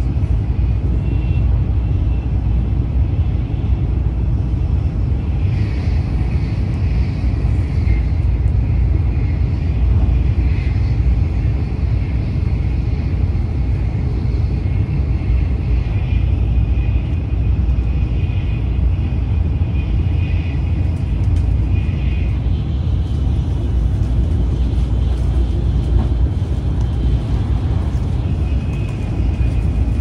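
Tokaido Shinkansen train running at speed, heard inside the passenger cabin: a steady deep rumble from the wheels on the rails, with a faint high whine that comes and goes.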